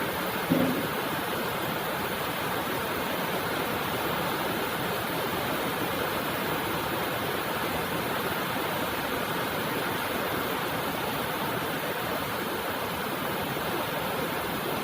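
Steady heavy rain, an even hiss of falling water. A short low thump stands out about half a second in.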